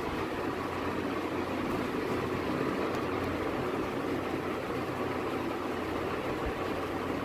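A steady mechanical hum with an even rush of noise, like a running fan.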